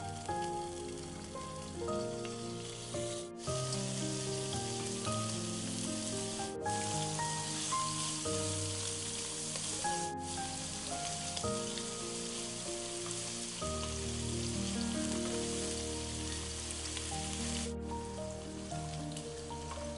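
Cubes of wagyu beef sizzling as they sear in a hot nonstick pan, with background music playing over it. The sound breaks off for an instant a few times.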